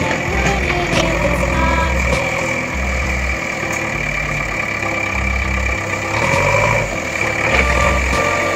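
A vehicle engine idling steadily, with a low throb that comes and goes.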